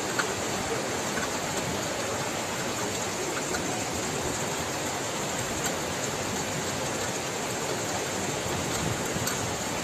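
Steady rushing of floodwater through a flooded street, an even hiss of water, with a few faint ticks.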